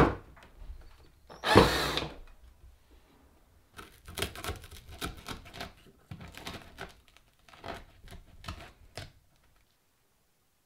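A handheld drill runs in one short burst on MDF joinery about one and a half seconds in. After that comes a run of light clicks and scrapes of cutlery cutting food in a wooden bowl, which stops about a second before the end.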